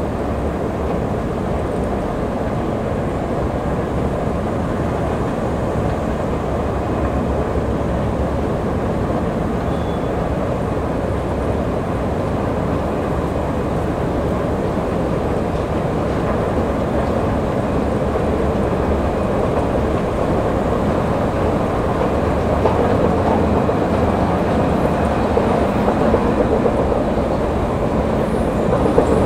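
Long metro-station escalator running under a rider: a steady mechanical rumble of the moving steps and drive, growing a little louder over the last few seconds.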